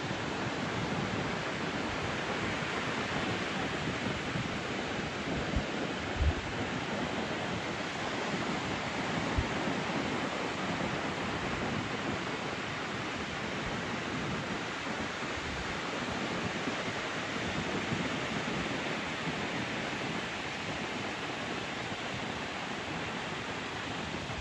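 Surf breaking on a sandy beach, a steady wash of waves running high with swell from an approaching typhoon. A few brief low thumps come about six and nine seconds in.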